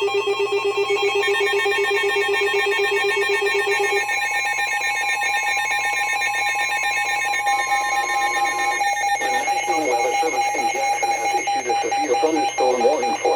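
Weather radio emergency alert for a severe thunderstorm warning: layered electronic alert tones, including a steady high tone that stops about 9 seconds in. A broadcast voice then starts reading the warning over a lingering tone.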